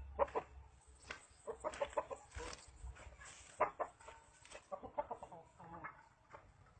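Chicken clucking in short, repeated calls.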